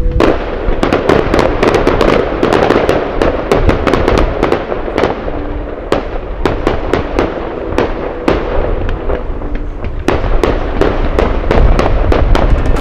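Fireworks going off: a dense run of sharp bangs and crackling, several a second, over a continuous hiss of bursting stars, starting abruptly.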